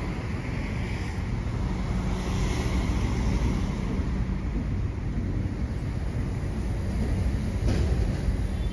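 Steady low rumble of vehicles, with a brief click near the end.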